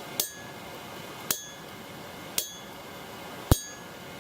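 Hammer striking the face of a 115 kg South German double-horn anvil four times, about once a second, each blow a sharp clink with a short high ring as the hammer rebounds off the face; the last blow is the loudest. A magnet on the front of the anvil deadens its ring.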